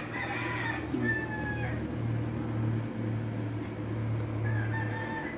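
A rooster crowing twice, once at the start and again near the end, over a steady low hum.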